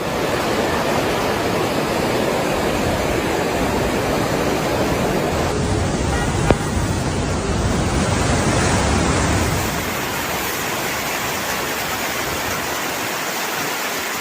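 Overflowing river floodwater rushing in a steady, dense noise, with a brief click about six and a half seconds in.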